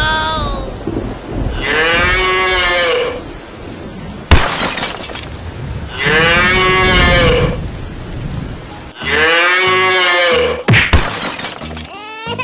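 A cow mooing three times, each moo a long call that arches up and then down in pitch, over a steady hiss. A single sharp crack comes about four seconds in.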